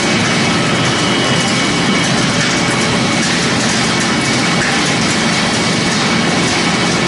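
Biomass pellet mill and its belt conveyor running while pressing pellets: a loud, steady machine noise with a faint high whine.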